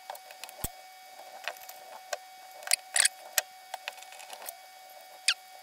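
Small sharp metal clicks and scrapes from a coax antenna connector being worked back into a receiver tuner module's sheet-metal can with a small metal tool. The clicks are scattered and irregular, with a quick cluster about three seconds in.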